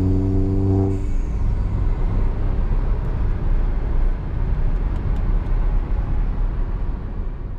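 Cabin noise of a Peugeot car on the road: a steady engine drone for about the first second, then mainly road and tyre rumble, starting to fade near the end.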